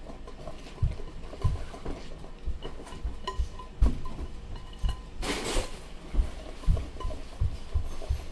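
Silicone spatula stirring and scraping thick cornbread batter in a glass mixing bowl, with irregular soft thumps and faint clinks against the bowl. A brief louder rush of noise a little after five seconds in.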